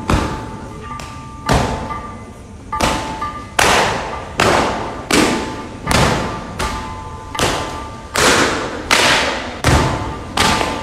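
A steady series of heavy thuds, about one every three-quarters of a second, each with a long echoing tail, over a faint steady hum.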